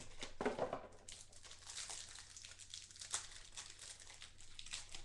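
Trading cards and clear plastic card sleeves being handled, crinkling and rustling in an irregular string of short rustles and ticks.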